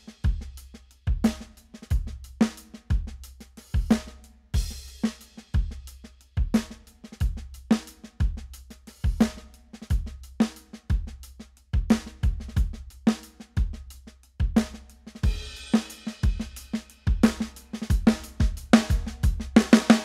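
Drum kit played with no other instruments: a steady kick drum beat about once a second with snare hits and cymbals between, the strokes growing quicker and denser near the end.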